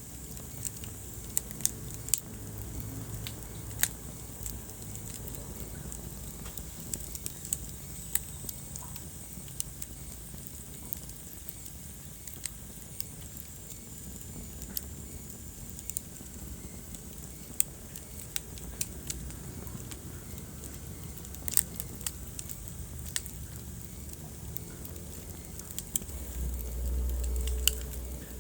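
Wood fire burning in a fireplace: irregular sharp crackles and pops over a low, steady rumble of flames. The rumble swells louder for about two seconds near the end.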